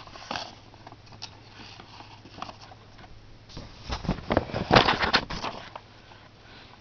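Handling noises of a vinyl record being set on a portable record player: scattered clicks and light knocks, with a louder stretch of rustling, scraping and knocks from about three and a half to five and a half seconds in.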